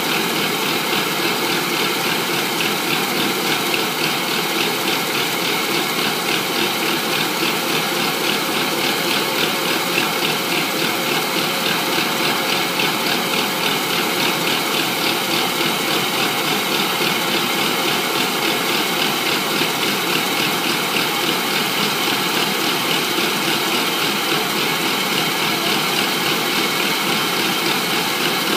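Rice combine harvester running steadily at work, its engine and machinery making a loud, even mechanical noise that does not change.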